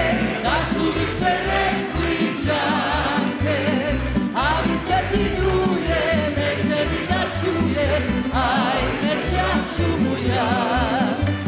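Live band performance of a Dalmatian pop song: singing over plucked string instruments with a steady bass beat.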